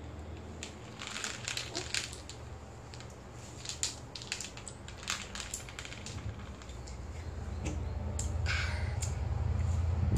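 Jelly beans clicking and rattling against a plastic plate as fingers pick through them, in a run of small sharp clicks over the first several seconds. A low hum swells near the end.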